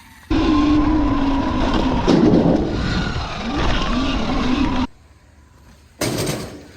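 Sur-Ron electric dirt bike being ridden, its motor whining with pitch that wavers with the throttle, over wind and tyre noise. It cuts off abruptly about five seconds in, and a shorter burst follows near the end.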